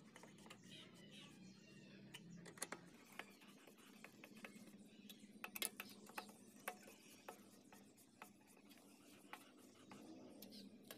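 Faint, scattered metallic clicks and scrapes of a hand screwdriver turning Phillips pan-head screws into a painted sheet-metal panel, a few sharper clicks standing out in the middle.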